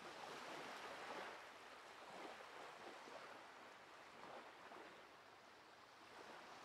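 Faint ocean surf: an even hiss of waves washing that swells and fades a few times.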